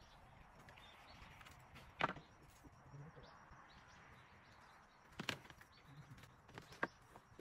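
Faint birds chirping, with a few sharp knocks and clacks: one about two seconds in, then a cluster from about five seconds on as a blue plastic crate is lifted and handled.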